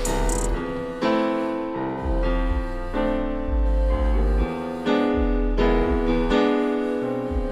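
Background music led by piano or keyboard chords over a bass line.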